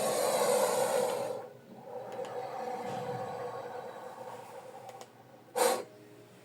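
Crocodile sound effects: a loud hissing exhale, then a longer, softer rasping breath, and a short sharp snort about five and a half seconds in.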